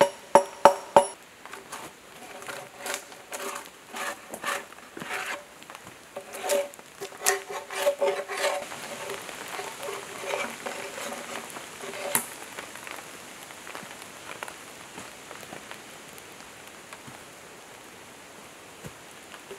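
Bark being stripped from a log with a blade: a few sharp ringing blows in the first second, then quick irregular scraping strokes that die away about halfway through.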